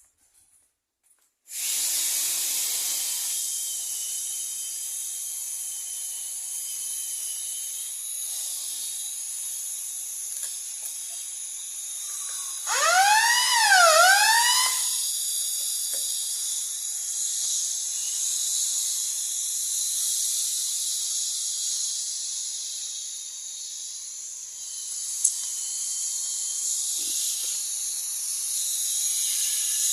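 Electronic fire alarm sounder giving a short siren burst of a few quick up-and-down sweeps lasting about two seconds, over a steady high hiss.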